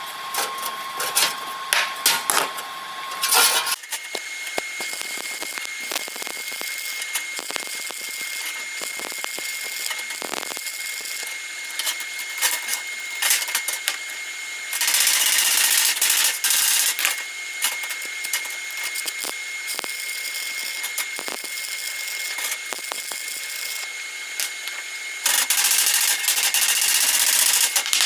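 Stick (shielded metal arc) welding: the electrode arc crackles and sputters continuously, with two louder hissing stretches, one about halfway through and one near the end.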